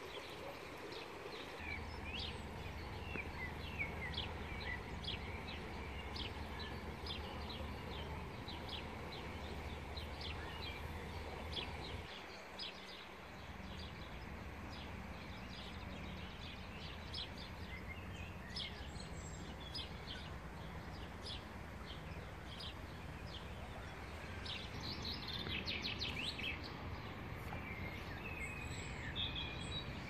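Small songbirds chirping and singing in many short calls, busiest near the end, over a steady low background rumble that drops away briefly about halfway through.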